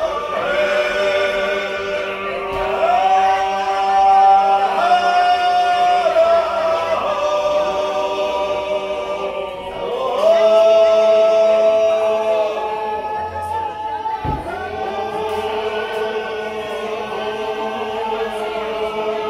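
A small group of men singing a traditional Svan (Georgian) polyphonic song a cappella: several voices holding long, close chords together, moving to a new chord every few seconds.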